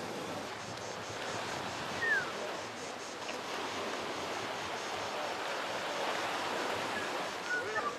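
Steady rushing outdoor noise of wind and sea along a rocky shoreline, with one short falling chirp about two seconds in and a few faint chirps near the end.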